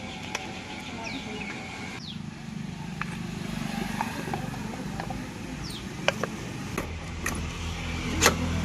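A motor vehicle engine running with a low steady hum that grows louder toward the end, over a series of sharp clicks and knocks about a second apart.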